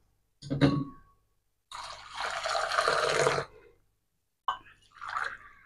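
Milk mixed with a homemade protein-flour drink mix poured in a long splashing stream from a steel tumbler into a steel bowl, with short clinks of the steel vessels near the start and near the end. The pouring back and forth mixes the powder in so that no lumps form.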